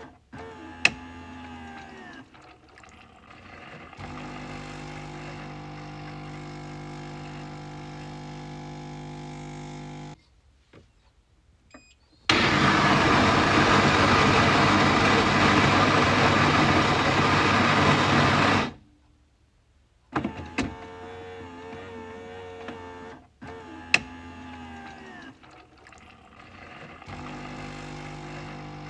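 Coffee machine running: a steady motor hum with a few sharp clicks, a short lull, then a loud noisy burst lasting about six seconds that cuts off abruptly, after which the hum comes back.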